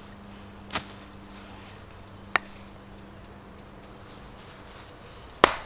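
Pieces of split firewood knocking against each other as they are handled: a few sparse, sharp knocks, with the loudest near the end.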